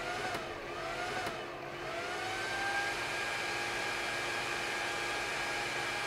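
Small electronics cooling fan in a CNC control enclosure whirring with a thin whine that wavers for the first couple of seconds, then rises slightly and holds steady. The fan keeps running even though the emergency stop has been pressed.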